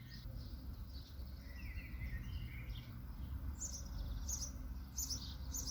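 Songbirds chirping and singing over a steady low background rumble, with a cluster of short high chirps in the second half.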